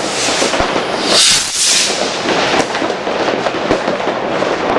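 Firework rocket launching from a bucket: a loud rushing hiss about a second in as it climbs away, over steady crackling and pops of other fireworks and firecrackers.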